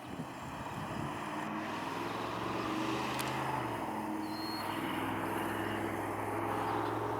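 A motor vehicle's engine running steadily, growing louder over the first second or so, with its pitch dropping slightly a little past halfway through.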